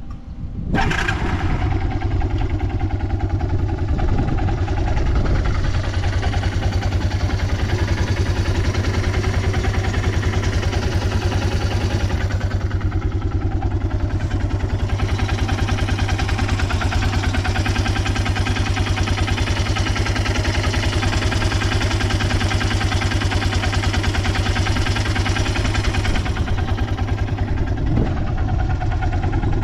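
Yamaha Breeze 125 ATV's four-stroke engine starting about a second in and then idling steadily with a fast, even beat, running without abnormal noise by the seller's account.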